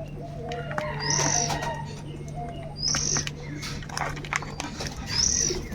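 Crows and other birds calling, with a short high-pitched call repeating three times about two seconds apart.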